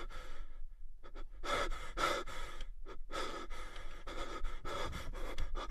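A person breathing heavily into a microphone: a string of breaths in and out, roughly one a second.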